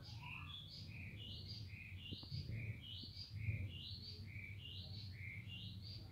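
A songbird singing a repeated two-note phrase: a short lower note followed by a rising higher note, repeated a little faster than once a second.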